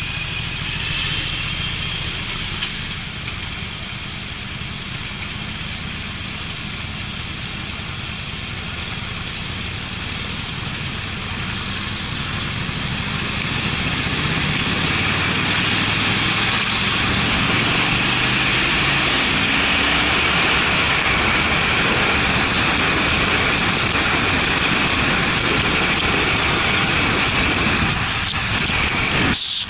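Harley-Davidson Street Bob's air-cooled V-twin engine running under way, its revs climbing as the bike pulls away about halfway through. A loud rush of wind on the microphone grows with the speed.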